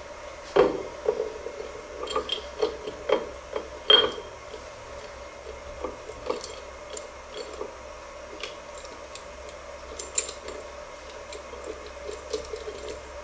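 Metal parts clinking and knocking as a mold half and its shoulder bolts are handled and fitted onto the mold plate of a desktop injection molding machine: a quick run of sharp knocks in the first few seconds, then occasional lighter ticks. A steady faint machine hum runs underneath.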